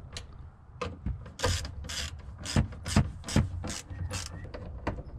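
Ratchet wrench clicking in short, irregular runs as the 8 mm nuts on a fuel pump access plate are tightened down.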